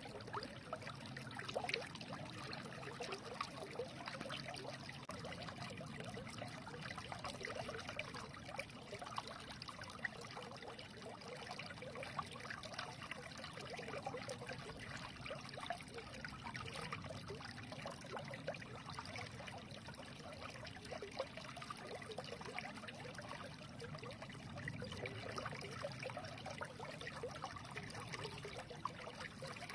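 A small stream running, a steady trickling and babbling of water with many small splashes and bubbles.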